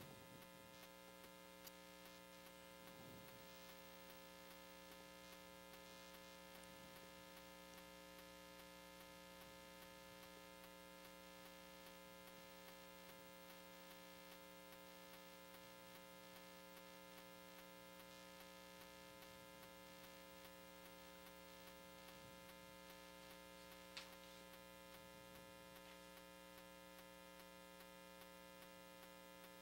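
Near silence: a faint, steady electrical hum in the broadcast audio, with one faint click near the end.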